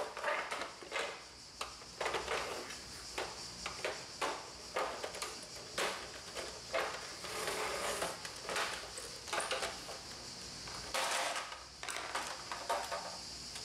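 Plastic cover of an HP Deskjet 3055A scanner assembly being prised off with a small screwdriver: a run of irregular clicks, small snaps and scrapes of plastic. There is a longer rattle near the end as the cover is worked loose.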